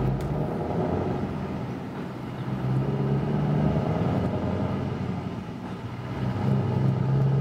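Scania R500 truck's V8 diesel engine running as the truck pulls away, getting louder about three seconds in and again near the end.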